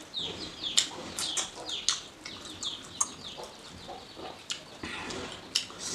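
Close-miked wet chewing and lip smacking of oily chicken curry, with sticky fingers pulling the meat apart: a quick string of clicks and short squelchy squeaks.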